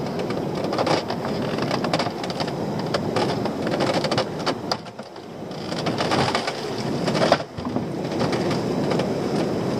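Sea water splashing and dripping and wind on the microphone as a homemade lobster pot is hauled over the side of a small open boat, with scattered knocks and rattles from the pot being handled.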